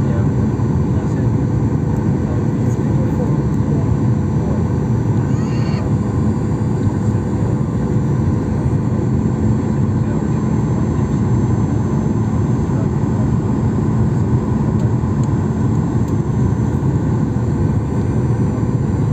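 Steady airliner cabin noise during the descent to land: engine and airflow noise heard from inside the cabin, even and unchanging, with a steady low hum running through it.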